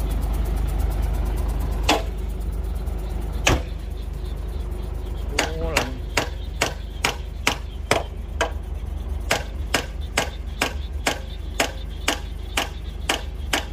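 Repeated sharp knocks, sparse at first and then steady at about two a second, over a continuous low hum.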